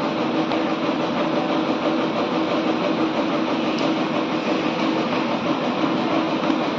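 Steady machinery noise: a constant hum over a broad hiss.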